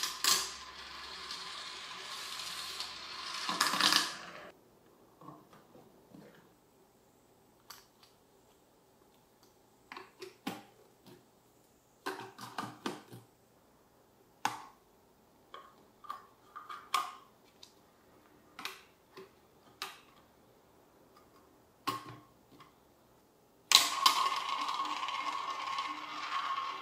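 Marbles rolling on a toy marble run's plastic track: a steady rolling rush along a spiral that builds for about four seconds and stops, then scattered clicks and clacks as they drop through the course. Near the end, a sudden louder steady whirring starts as marbles circle in a plastic funnel bowl.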